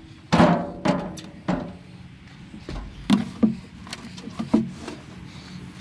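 Shovel digging wood chips out of a steel tractor loader bucket: a loud scrape and rattle of chips about half a second in, then several sharp scrapes of the blade against the metal with a short ring, under a faint steady low hum.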